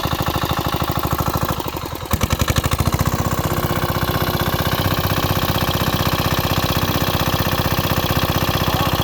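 Small diesel engine of a water pump running steadily with an even, rapid firing beat, dipping briefly about two seconds in, while it pumps the pond dry.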